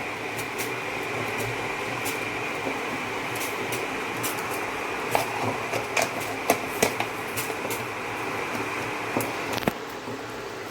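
Steady hum of an induction cooktop with a pot of water heating on it, with scattered light clicks and taps of utensils and containers as a spice mix is measured out. Near the end the hum drops off, with a knock.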